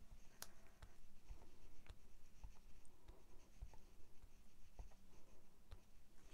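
Clear acrylic stamp block tapped on an ink pad and pressed onto cardstock: faint scattered taps and light scuffs, with one sharper click about half a second in.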